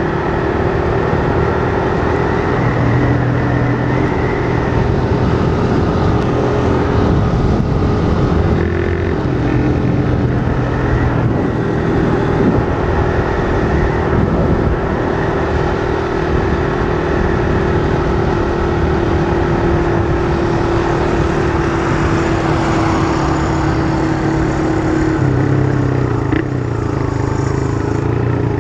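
Motorcycle engine running on the move through a loud aftermarket can-style ('de lata') exhaust, with wind rush over it. The engine note holds steady, then changes pitch about eight seconds in and again near the end as the throttle and gears change.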